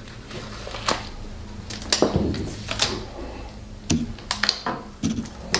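Scattered small clicks and knocks of a bottle and small items being handled and set down on a bench, some with a low thud.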